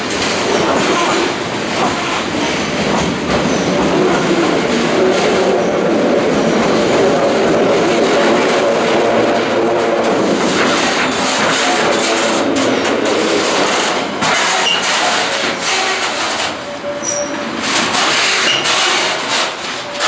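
A train passing close by: a steady loud rumble and rattle of wheels on the rails, thinning out about three-quarters of the way through.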